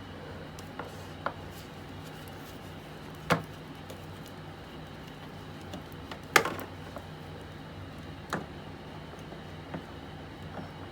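A handful of short, sharp knocks and clicks at irregular intervals, the loudest about six seconds in, over a steady room hum.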